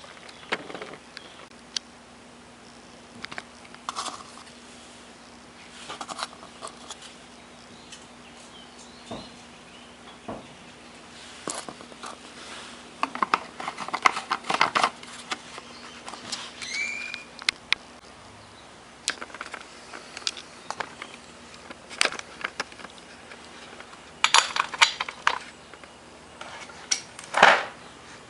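Hands working on small plastic and metal parts with hand tools: scattered clicks, taps and rustles, busiest midway and near the end, over a faint steady hum.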